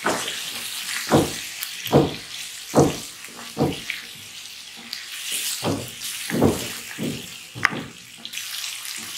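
Chicken pieces frying in ghee in a karahi with a steady sizzle, while a wooden spatula stirs and scrapes across the pan in short strokes about once a second, with a brief pause midway.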